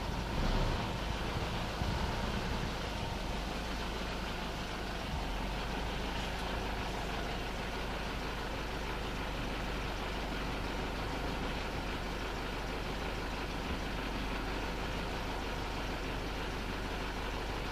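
Mitsubishi Pajero engine running steadily, a constant low vehicle drone without revving or sudden changes.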